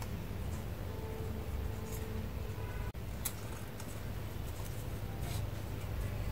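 Scissors cutting colored craft paper: a few separate short snips over a steady low background hum.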